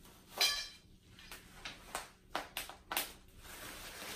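Bubble wrap popping and crackling under a child's bare feet: a handful of sharp pops, the loudest about half a second in.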